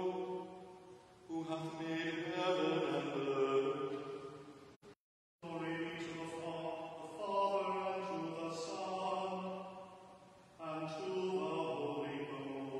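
Sung liturgical chant from a Book of Common Prayer Mattins service: male singing in long held phrases with short breaks between them. The sound drops out completely for about half a second around five seconds in.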